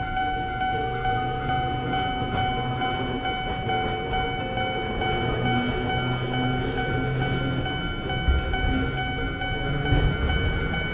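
Toyama Chiho Railway 10030-series electric train passing over a level crossing, its wheels rumbling, with two heavier thumps over rail joints near the end. A crossing warning bell rings steadily above the train noise.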